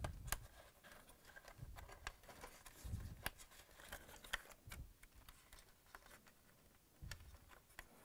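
Faint handling noise of a wire harness being pressed into a plastic retainer on a dishwasher door: scattered small clicks and ticks, with a few soft low bumps.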